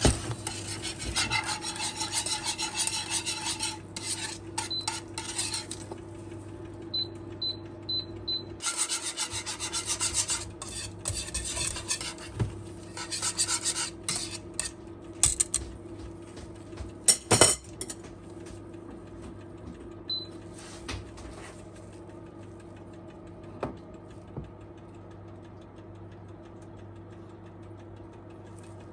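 Rapid, rhythmic scraping of a kitchen utensil against a bowl or pan, in two long spells with a short pause between them. Then a single sharp clatter and a few light knocks, over a steady low hum.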